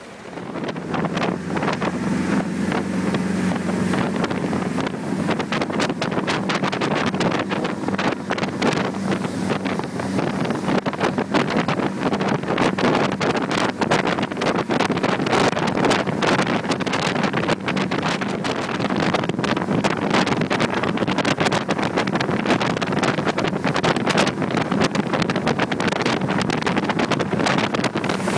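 Zodiac's outboard engine running at speed with a steady low hum, under heavy wind buffeting on the microphone and rushing water; it comes up to speed about a second in.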